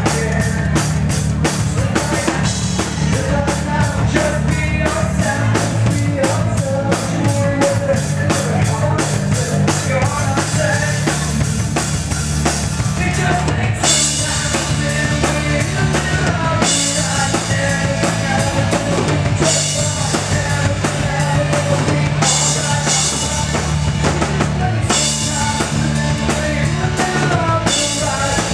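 A rock band playing live, loud and continuous: drum kit with bass drum and snare driving the beat under electric guitars. From about halfway through, cymbal crashes come in repeatedly.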